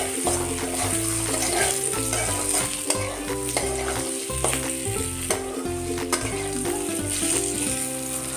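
Brinjal pieces and green chillies sizzling in hot oil in an aluminium kadhai. A steel spatula stirs them, scraping and tapping against the pan again and again.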